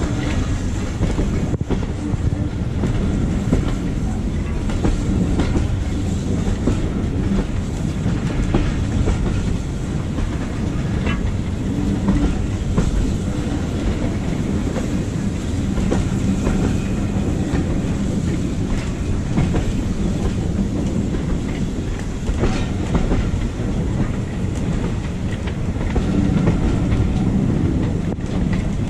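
Heritage steam train's carriage running along the track, heard from a carriage window: a steady low rumble of the wheels on the rails with scattered clacks over rail joints.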